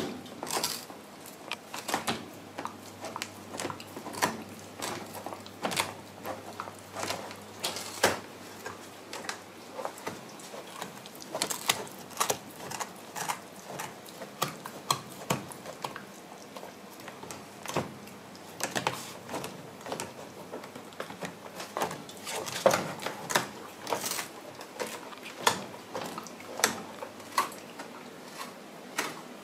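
Shiba Inu gnawing on a large rawhide chew bone: an irregular run of sharp clicks and crunches from its teeth working the hard chew.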